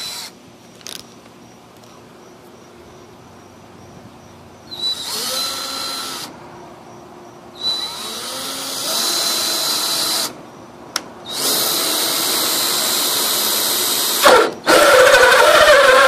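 Power drill turning a 2.5-inch hole saw in several short runs that start and stop, its whine rising as the motor spins up each time. The last run, starting near the end, is louder as the saw cuts into the wooden board.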